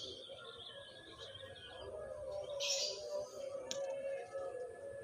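Birds chirping in short, high calls, with a brief harsh burst just past the middle.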